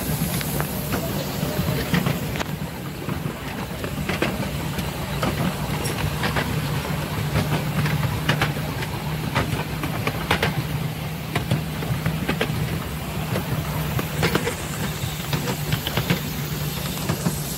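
Miniature railway train running along the track: a steady low rumble from the wheels with frequent irregular clicks as they pass over the rail joints, and a faint steam hiss from the locomotive ahead.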